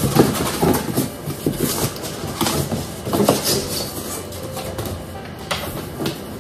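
A cardboard hat box being handled and opened: irregular scraping and rustling with a few light knocks.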